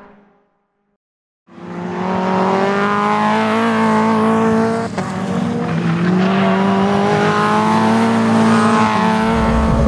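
Caterham 420R race car's four-cylinder engine accelerating hard after a second of silence. Its pitch climbs, drops sharply at an upshift about five seconds in, then climbs again, with a deeper rumble joining near the end.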